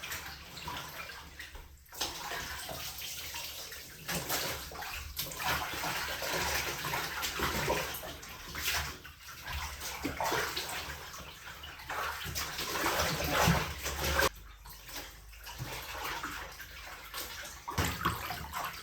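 Laundry being swished and sloshed by hand in a bathtub of clean rinse water, in uneven surges with short pauses, to flush the dirty wash water out of the fabric.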